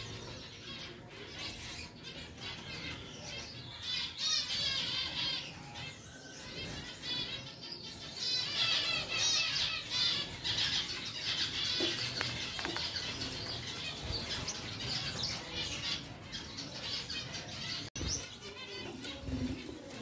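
Many caged finches chirping and twittering together, with the flutter of wingbeats as birds hop and fly about the cage.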